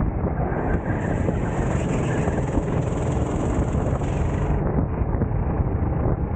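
Racing kart's engine running at speed, heard from on board under heavy wind buffeting on the microphone. A high hiss comes in about half a second in and drops away after about four and a half seconds.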